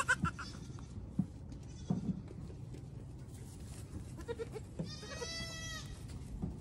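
Goat kids bleating: a short call right at the start and a louder, high-pitched bleat about five seconds in lasting under a second, with a few soft thumps in between.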